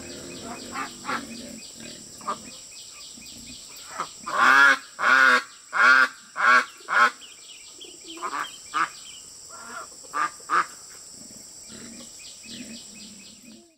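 A flock of white domestic ducks quacking, with a run of about six loud quacks in quick succession about four seconds in and scattered quieter quacks before and after.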